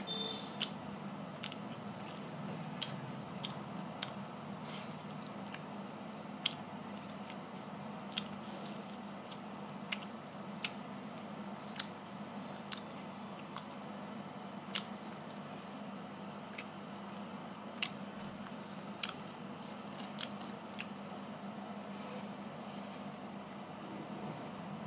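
A person chewing food close to the microphone, with wet smacks and clicks of the mouth about once a second over a faint steady hum.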